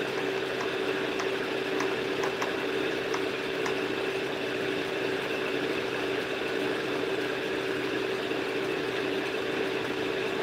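A steady mechanical hum with a constant pitched tone, joined by a few faint clicks in the first four seconds.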